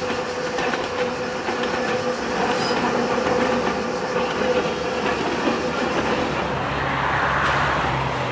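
ČKD T669 diesel-electric locomotive hauling passenger coaches, its diesel engine running with a steady hum while the coach wheels roll along the track. About six and a half seconds in, the sound changes to a deeper steady engine drone as a T669 approaches head-on.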